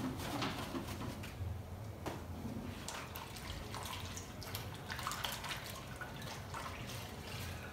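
A cleaning cloth being dipped, swished and squeezed in a basin of soapy water, with irregular small splashes and drips.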